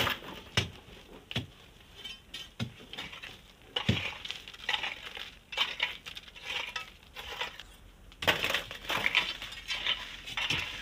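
Long iron crowbars and a hoe striking and scraping into packed sand and gravel: scattered sharp knocks and clinks, turning into denser gritty scraping from about halfway through.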